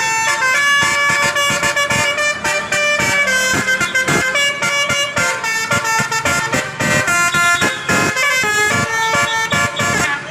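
Basuri telolet bus horn playing a tune: a quick, unbroken run of short horn notes stepping up and down in pitch.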